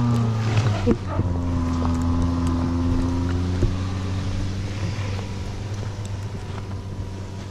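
Toyota Corolla sedan's engine running steadily as the car pulls away up a snow-covered hill after being pushed free. The sound slowly fades as the car drives off.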